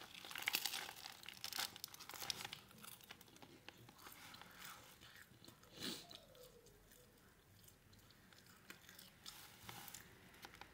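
Biting into a crusty bread-roll sandwich and chewing it: the crust crunches and crackles with close mouth sounds. The crunching is busiest in the first couple of seconds.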